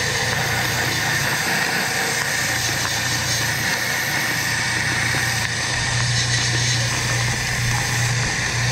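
Neiko gravity-feed sandblaster gun on a high-flow nozzle and hose blasting steadily: a loud, continuous rush of compressed air and sand. A low machine hum runs beneath it and grows stronger about six seconds in.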